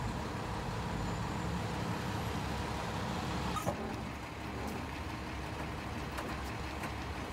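A city bus's engine running steadily close by, a dense low rumble, with a single brief click about three and a half seconds in.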